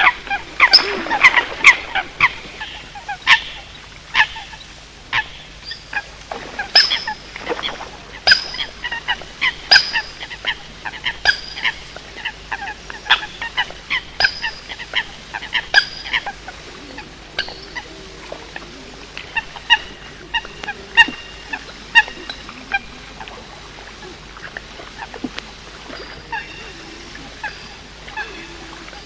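Eurasian coots calling: a quick string of short, sharp honking calls, thick in the first half and thinning to scattered, fainter calls later on.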